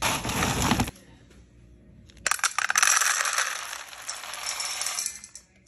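A plastic cup scooping through dry dog kibble for about a second, then the kibble poured into a stainless steel bowl: a dense rattle of pellets hitting metal for about three seconds that tails off near the end.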